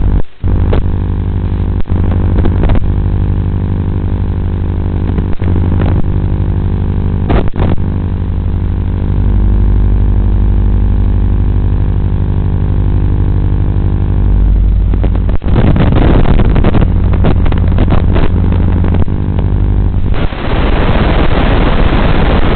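A steady, many-toned buzz from an FPV quadcopter, heard through the analog video link's audio channel. About 15 s in it breaks into crackling, and near the end it turns to a steady hiss of static as the video signal is lost.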